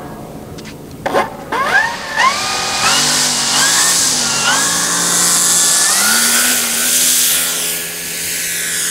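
Electric motor and propeller of a quarter-scale P-40 Warhawk RC model throttled up for takeoff. About a second in, the motor whine climbs steeply in a few quick steps. It then holds a steady high whine with small pitch shifts, under a loud rushing hiss from the spinning propeller, as the plane rolls and lifts off.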